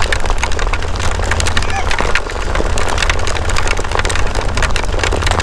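Hail and rain pelting the GoPro housing as a dense, rapid patter of ticks, over a deep steady rumble of wind buffeting from riding.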